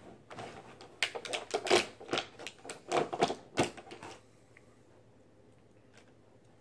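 Hard plastic action figures being handled and set down: a quick, irregular run of clicks and clatters that stops about four seconds in.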